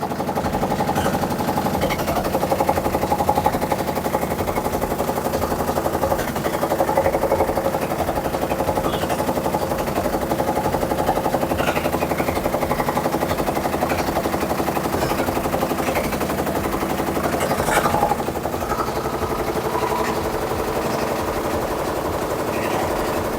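Samsung top-load washing machine on its spin cycle, making a loud, continuous rapid banging and rattling: the huge abnormal spin noise of a faulty washer.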